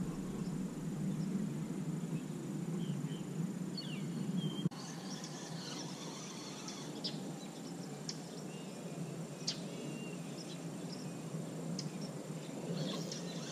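Outdoor ambience with a steady high insect drone and scattered short bird chirps over a faint low rush, broken once by a sharp click a little under five seconds in.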